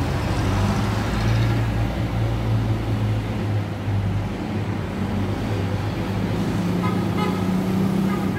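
Road traffic on a city street: a steady low engine drone with tyre noise as cars and motorcycles pass.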